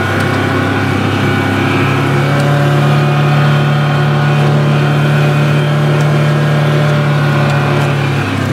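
Side-by-side UTV engine running as it drives, heard from inside the cab. The engine note rises about two seconds in, holds steady, and drops back just before the end.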